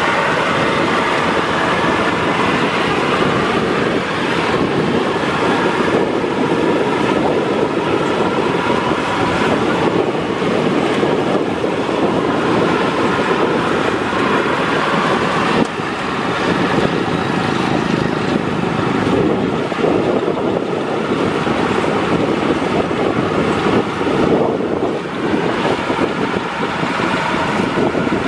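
Maxxi Bimo 102 rice combine harvester running steadily while harvesting, its engine and threshing machinery making a loud, continuous mechanical noise.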